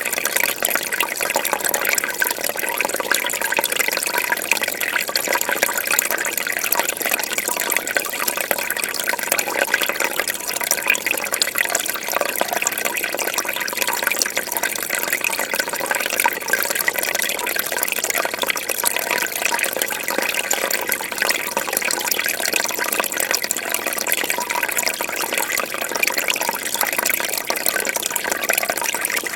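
Aquarium water splashing and bubbling steadily, the continuous trickle of a filter outflow or air bubbles breaking the surface of a fish tank.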